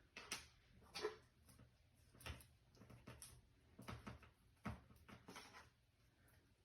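Near silence in a small room, broken by about half a dozen faint, scattered clicks and light knocks.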